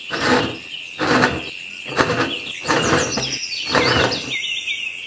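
Five short rasping scrapes, about one a second, as the small gear-wheel handle on the threaded stem of a miniature tap model is twisted. Birds chirp throughout behind it.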